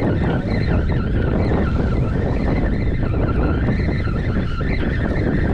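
Wind buffeting the microphone as a steady rushing noise, with a faint whirring from a spinning reel being cranked to bring up a small fish.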